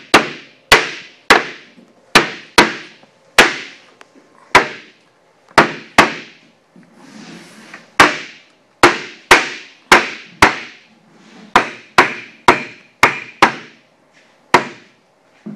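A homemade wooden club studded with nail points hammered repeatedly into a solid oak barrel head: some two dozen sharp wooden whacks at an uneven pace, with a pause of about two seconds near the middle. Each blow dents the oak or punches a mock wormhole to distress it and make it look a century old.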